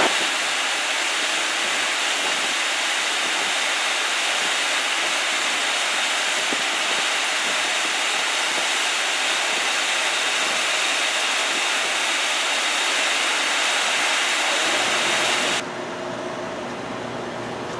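Steady, loud rushing hiss of industrial machinery and moving air, even throughout with no rhythm or pitch. About two seconds before the end it drops suddenly to a quieter hiss.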